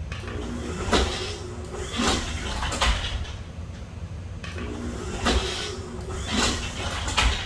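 Craftsman belt-drive garage door opener running in two short spells, each a steady motor hum broken by three sharp clunks, as the door fails to travel.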